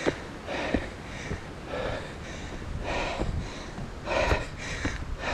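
A man's heavy, rough breathing from hard uphill running effort, about six loud gasping breaths at an uneven pace of roughly one a second. His lungs are straining near maximal effort.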